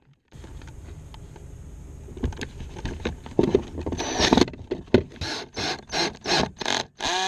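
Screws being driven into a boat's switch plate: mechanical scraping and ticking, then a run of short bursts about three a second near the end.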